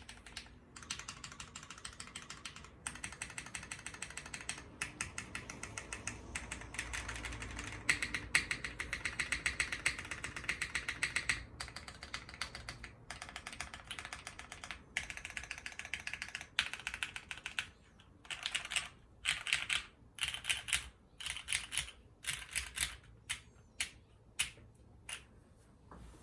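Custom mechanical keyboard with lubed, retooled Cherry MX Black linear switches in an aluminum plate and GMK keycaps, being typed on. The typing is fast and continuous at first. From about two-thirds of the way in it breaks into short separate bursts of keystrokes, about one a second, with brief pauses between them.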